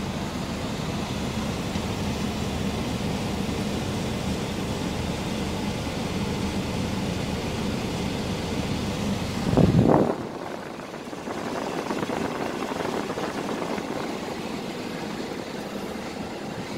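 Scania R410 truck's 13-litre six-cylinder diesel engine idling, heard from inside the cab as a steady low drone. About ten seconds in there is a brief loud rumble, after which the low drone drops away and a quieter noise carries on.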